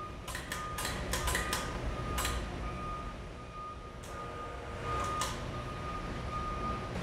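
Overhead electric hoist lifting a 1,500 to 2,000 pound forklift battery: a steady low motor hum with a thin high whine that starts and stops several times as the pendant button is jogged. Sharp clicks come in the first couple of seconds and again about five seconds in.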